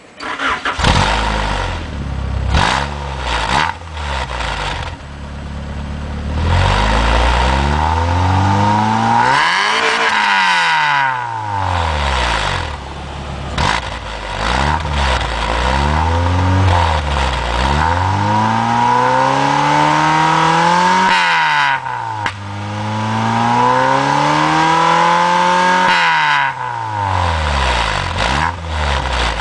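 Car engine heard through a newly fitted aftermarket exhaust with a chrome tip. It starts up about half a second in, then is revved again and again, its pitch climbing and falling in long sweeps, some of them slow climbs held for several seconds before dropping back.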